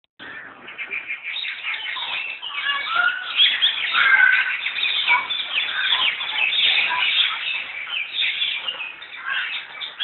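Many small birds chirping and twittering at once, a dense, continuous chatter of short high calls.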